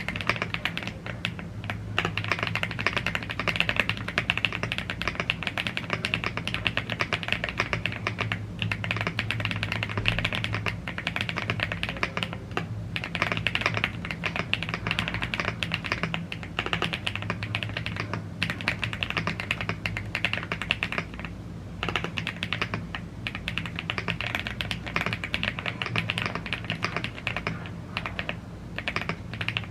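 Continuous fast typing on a gasket-mounted CNC aluminum mechanical keyboard with Blue Grey tactile switches and double-shot PBT Cherry-profile keycaps: dense keystroke clacks with a few short pauses, over a faint steady low hum.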